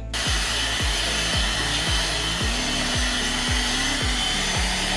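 A hair dryer-type hot-air styling tool blowing steadily with a faint whine, used to curl hair. It switches on abruptly at the start. Background pop music with a steady kick-drum beat plays underneath.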